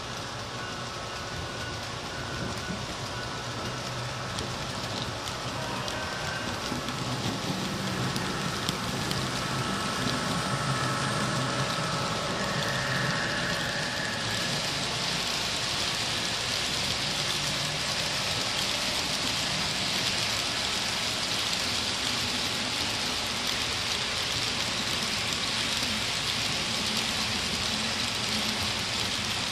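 Model railroad coal train rolling by: a steady clatter and hiss of small metal wheels on the rails. A low hum from the diesel locomotives is heard in the first half, and the rolling noise grows louder from about halfway as the loaded hopper cars pass close.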